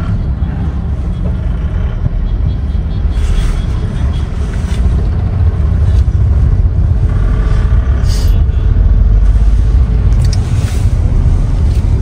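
Road vehicle running on the move, a steady loud low rumble of engine and road noise.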